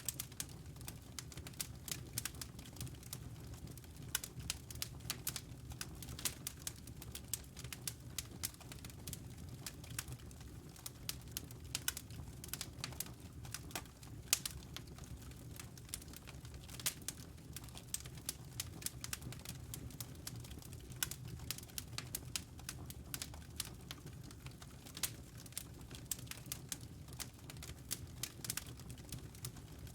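Wood logs burning in a fireplace, crackling with many sharp, irregular pops over a steady low rumble.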